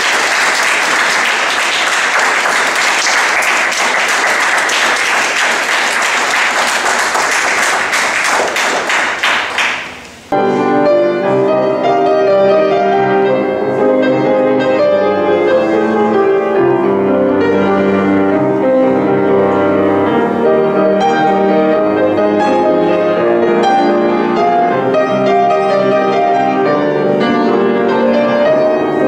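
Audience applauding, which dies away about ten seconds in; then a grand piano playing a solo piece.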